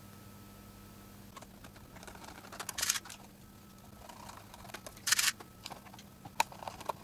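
Small metal screws clinking and rattling in a plastic parts tray as they are picked at with a screwdriver bit. There are scattered light clicks and two short loud clatters, about three and five seconds in.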